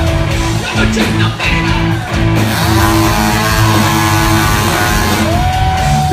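Live rock band playing loud: electric guitar with notes bent up and down over bass and drums.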